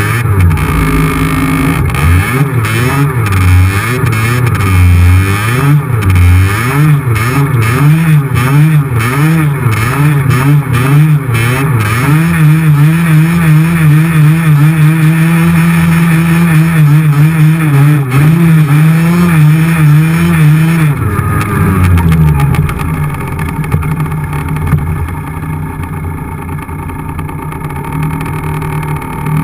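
50 cc two-stroke motorcycle engine under way on a snowy road. Its revs rise and fall over and over, then hold steady at a higher pitch for several seconds. About two-thirds of the way through the pitch drops and the engine settles to a lower, quieter note.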